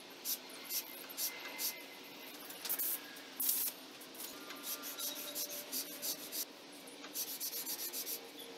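A wooden hand plane's sole rubbed back and forth on 150-grit stick-back sandpaper, a run of short scratchy sanding strokes that quickens to several strokes a second near the end: the sole being flattened.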